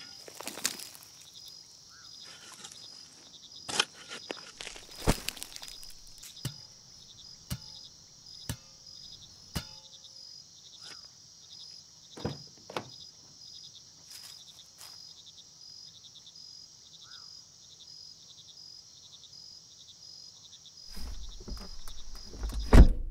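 Crickets chirping steadily, with scattered scrapes and thuds of a shovel digging into earth. Near the end a low rumble comes in, and a single loud thump is the loudest sound of all.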